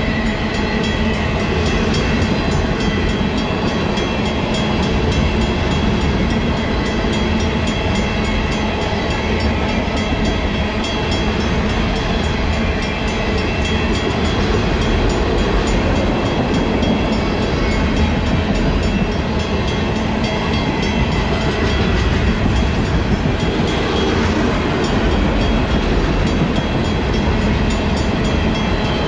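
Freight train of tank cars passing over a road crossing, a steady rumble with wheel noise, while the crossing's Western-Cullen-Hayes mechanical bell keeps ringing in evenly spaced strokes.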